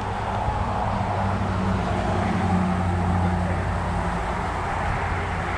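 A heavy vehicle's engine droning low and steady over traffic noise, growing louder through the middle and easing off toward the end as it passes.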